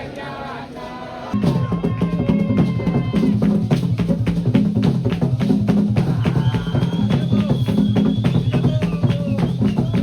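Background music: a song with a drum kit and a heavy bass line kicking in about a second in and keeping a steady beat.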